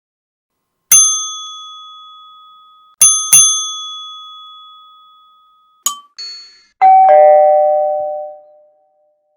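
Bells struck and left ringing one after another, unprocessed. A small high-pitched bell is struck once about a second in and rings out, then struck twice in quick succession around three seconds in. Two short, quick dings come near six seconds, then a lower-pitched bell is struck and rings for about two seconds.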